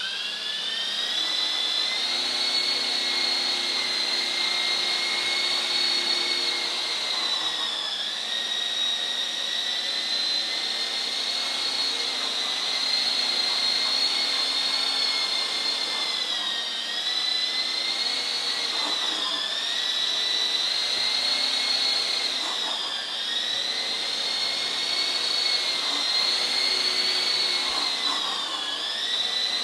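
Electric motors and rotors of a small coaxial RC helicopter whining at just under hover throttle, the pitch rising as it spools up at the start and then holding steady. The whine dips briefly in pitch every few seconds as the throttle and rudder are worked while the helicopter scoots forward and back.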